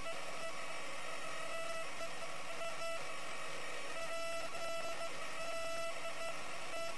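Electronic interference noise on the camera's audio: a steady static hiss with a buzzy electronic whine that fades in and out every second or so. The uploader attributes it to extraterrestrial interference.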